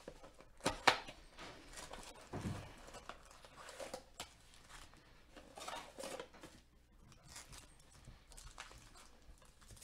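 Hands handling and opening a cardboard trading-card blaster box and pulling out foil-wrapped card packs: a sharp click about a second in, a dull thump a little after, then scattered short rustles and scrapes of cardboard and packs.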